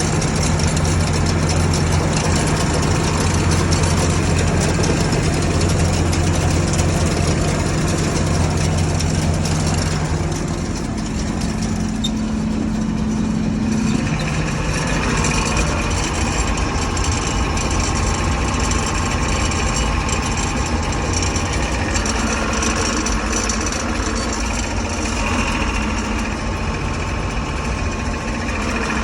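John Deere 6600 combine's engine running steadily. About ten seconds in the sound changes, and from about fourteen seconds a higher steady whir runs along with the engine.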